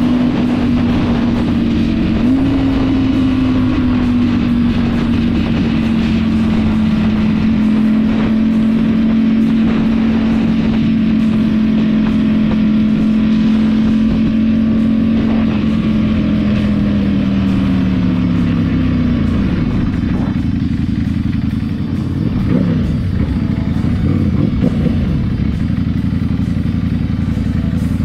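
Ducati Panigale V4 motorcycle's V4 engine holding a steady hum at highway cruising speed, with wind rushing past. About sixteen seconds in, the engine note falls as the bike slows, and it ends with lower engine sounds and a few short revs at low speed.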